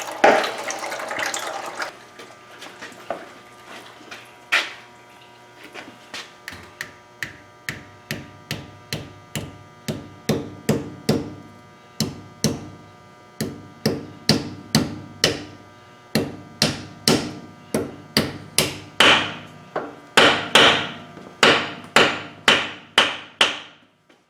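Hammer tapping repeatedly at the Suburban's differential pinion seal, sharp ringing strikes about one and a half to two a second, hardest near the end. A short hiss comes first, before the strikes begin.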